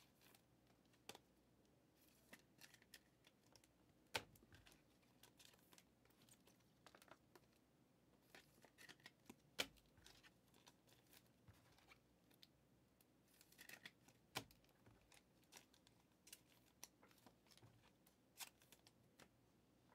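Near silence broken by faint, scattered clicks and light rustling from trading cards and a foil card pack being handled and opened.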